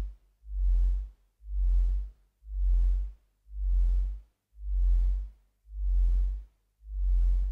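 Sparse music track made of a deep bass pulse, one pulse about every second, each lasting about half a second with gaps of quiet between.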